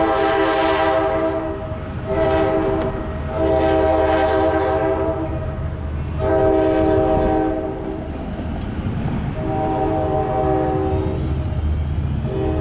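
Locomotive air horn sounding a chord of several notes in a series of blasts: one long, one short, then three more long ones, with another starting near the end. A low train rumble runs underneath.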